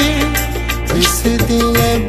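Punjabi pop song music playing: a wavering melody line over a steady bass and beat.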